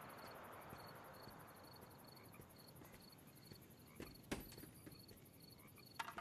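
Crickets chirping in a faint, even pulse, about three chirps a second, with a couple of soft footsteps on pavement about four seconds in.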